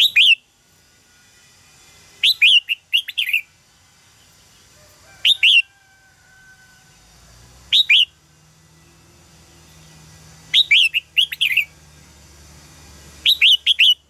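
Red-whiskered bulbul singing: six short, loud phrases of a few quick notes each, spaced about two to three seconds apart.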